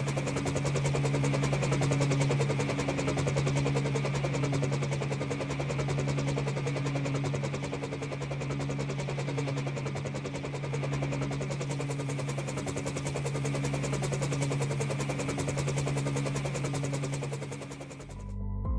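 Helicopter flying: fast rotor-blade chop over a steady engine drone. It cuts off abruptly shortly before the end.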